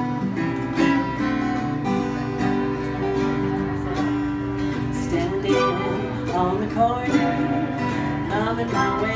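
Acoustic string band playing live: strummed acoustic guitars with mandolin and fiddle.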